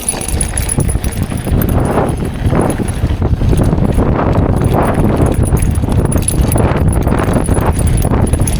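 Mountain bike descending a rough, rocky trail: knobby tyres crunching over rock and the bike clattering and rattling continuously, with wind rumbling on the microphone.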